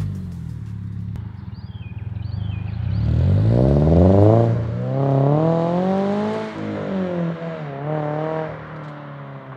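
A 2022 Subaru BRZ's 2.4-litre flat-four, breathing through an Invidia N2 cat-back exhaust, accelerates away. Its exhaust note climbs in pitch, drops back at a gear change, climbs again and drops at a second shift, then fades with distance. Birds chirp faintly near the start.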